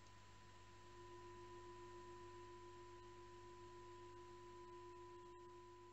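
Near silence with faint steady pure tones from the meditation's background sound: two held pitches, one low and one higher, over a low hum, the lower tone swelling slightly about a second in.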